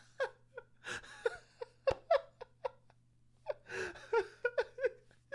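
A man laughing uncontrollably in short, breathless bursts, with a pause about three seconds in before the laughing starts again.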